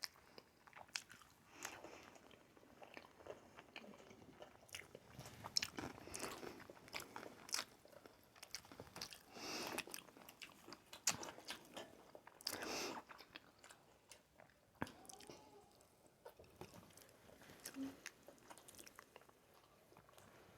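Quiet, close-up chewing and biting of sushi: soft wet mouth sounds with scattered small clicks and short bursts.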